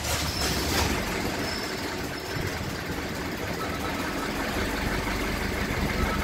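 2017 Honda WR-V engine cranking steadily on its starter motor with a fast, even pulsing, turning over without catching.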